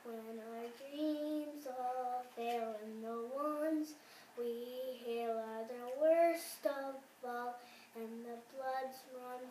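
A young boy singing unaccompanied: held notes with short breaths between them, the loudest a rising note about two-thirds of the way through.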